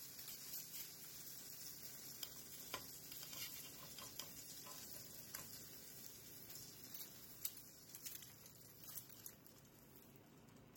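Butter and olive oil sizzling faintly in a stainless steel frying pan as chicken fritter patties are laid in to fry. There is a steady hiss with scattered small pops and crackles.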